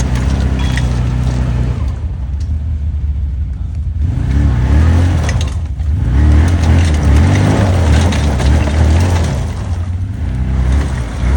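Motor vehicle engine revving hard under load, its pitch rising and falling; it is loudest from about halfway through until near the end.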